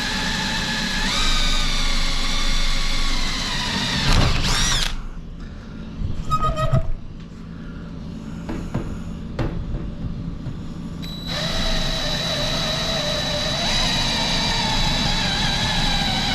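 Power drill boring a small pilot hole through aluminum plate, its motor whining steadily and rising in pitch as it speeds up. It stops for several seconds, with a few clicks, then runs again steadily for the last few seconds.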